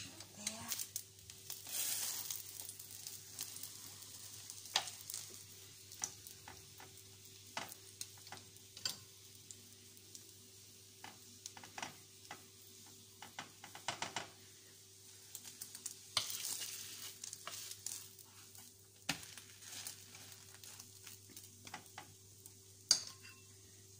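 Egg-dipped bread slices frying in oil in a nonstick pan, sizzling, the sizzle swelling twice, with scattered clicks and taps of a utensil and a sharp knock near the end.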